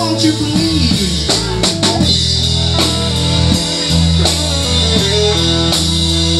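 Live blues band playing: an electric guitar plays a lead line with bent, gliding notes over drums, cymbals and a steady low end.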